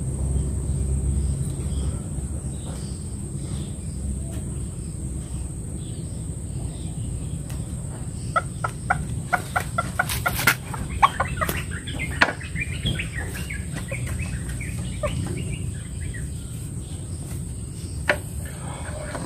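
Chicken clucking: a quick run of short clucks about halfway through, over a steady low rumble.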